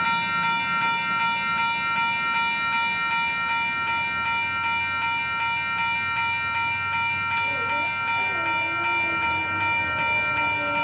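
Railroad grade-crossing warning bell ringing steadily while the departing passenger train rumbles faintly underneath.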